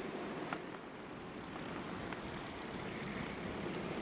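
Honda 5.5 hp single-cylinder four-stroke kart engines running at race speed as the karts pass, a steady drone.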